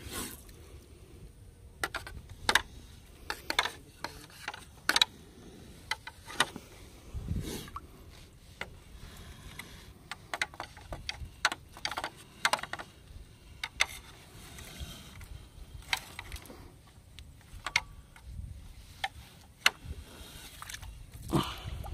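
Irregular light knocks and clicks, a few to a second, over a low rumble.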